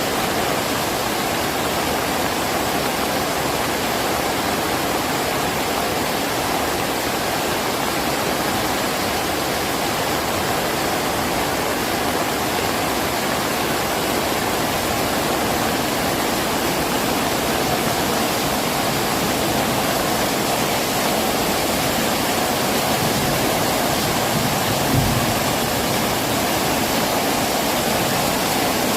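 Heavy rain falling steadily, a dense even hiss. One short low thump sounds near the end.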